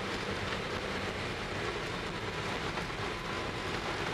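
Steady road and running noise heard inside a Toyota HiAce camper van driving on a snow-covered road: tyres on packed snow and the engine making an even, low noise that holds level throughout.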